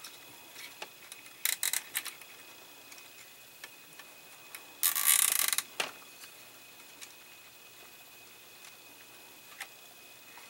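Fingers handling thin wires and plastic parts of a scale-model dashboard: a few small clicks about one and a half seconds in, then a scratchy rustle lasting about a second about five seconds in.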